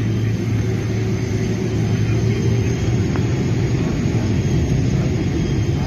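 Jet airliner's engines running steadily, heard from inside the cabin while the plane rolls on the runway: a steady low hum under a wash of noise, with a faint high whine.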